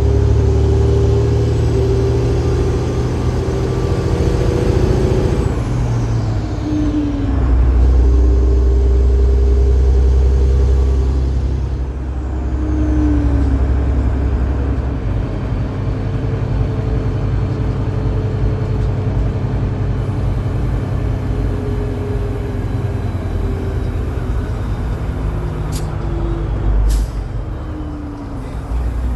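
Detroit Diesel Series 60 12.7-litre six-cylinder diesel pulling a heavy truck load of about 135,000 lb, working steadily, with the engine pitch dropping at gear shifts about six and twelve seconds in. Two brief sharp sounds near the end.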